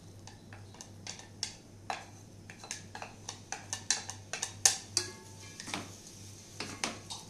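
Sliced onions tipped from a bowl into hot oil in a pressure cooker, then stirred with a wooden spatula. Irregular clinks and knocks against the cooker come more often and louder in the second half.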